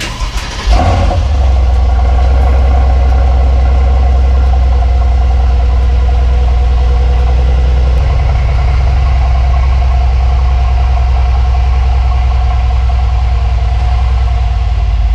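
2019 Mercedes-AMG C63's twin-turbo 4.0-litre V8 starting up: it catches within the first second with a brief flare, then idles steadily and loud through the exhaust.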